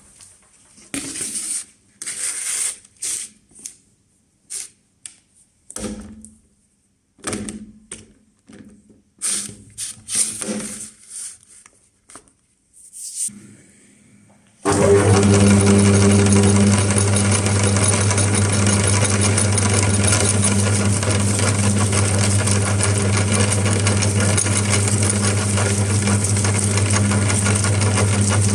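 Irregular knocks and rustles, then about halfway through an electric meat grinder switches on suddenly and runs with a steady, loud motor hum.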